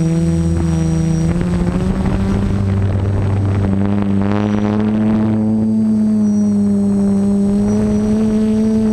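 A drone's electric motors and propellers buzzing steadily, heard from its onboard camera. The pitch shifts as it manoeuvres, settling higher from about the middle, with a short rush of noise about four to five seconds in.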